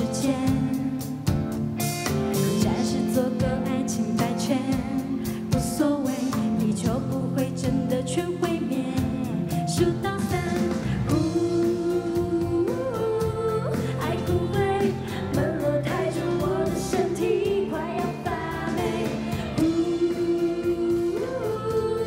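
Live pop song: a woman singing into a microphone over band accompaniment with a steady beat.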